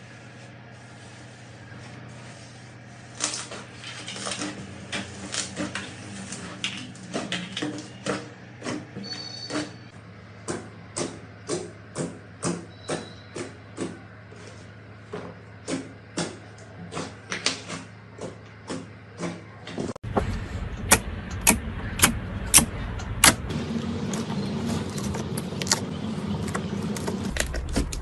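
Crunchy slime being squeezed and pressed by hand, giving short crackling pops about two a second over a steady low hum. About two-thirds of the way in, the sound cuts to another take with louder, sharper pops and a stronger hum.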